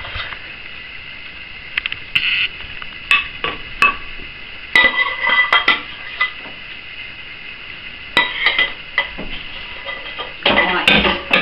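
Stainless steel saucepan being emptied of macaroni and cheese into a glass baking dish: intermittent metal scrapes and clinks, some briefly ringing, in several short clusters with pauses between.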